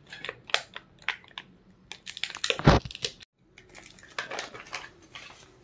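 Clear plastic packaging bag crinkling and rustling as it is opened and handled, with wooden coasters shifting inside. One louder rustle or bump comes near the middle.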